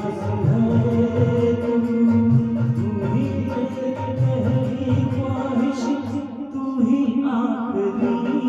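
A solo voice singing a Hindi song with held, sliding notes over backing music with a steady rhythmic percussion beat.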